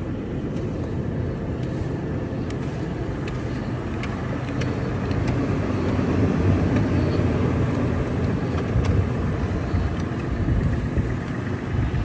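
Toyota 4Runner idling with a steady low rumble, a little louder from about six seconds in, while a snow brush sweeps snow off its hood and grille.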